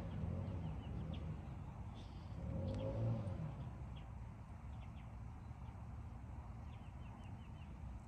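Outdoor ambience with a steady low rumble and faint high chirps from small birds. About three seconds in comes one low animal call, about a second long, rising then falling in pitch.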